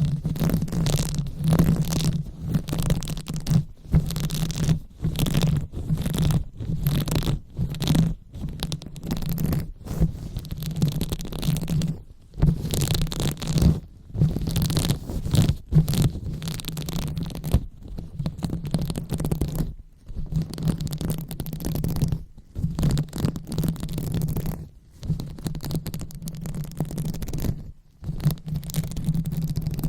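Fingers rubbing and massaging close against a microphone, a continuous low rumbling scratch in strokes broken by short pauses every second or two.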